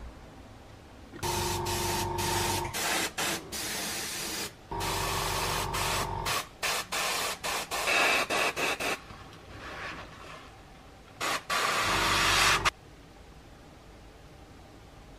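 An airbrush spraying in repeated bursts of hissing air: a few longer blasts and a run of short trigger pulses. A low motor hum runs under the longer blasts.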